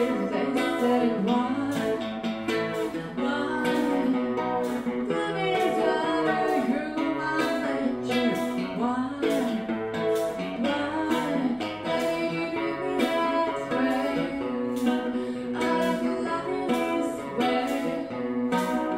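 Live song performance: a guitar strummed and picked in a steady rhythm, with a vocalist singing a sustained, flowing melody over it.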